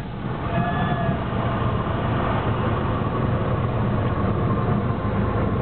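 Cessna 172's piston engine idling, heard from inside the cockpit during the landing rollout, a steady low drone mixed with wind and rolling noise. A short high tone sounds briefly about half a second in.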